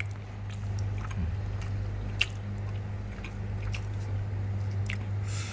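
A person chewing a mouthful of mok pa, Lao fish steamed in banana leaf, with scattered soft mouth clicks over a steady low hum.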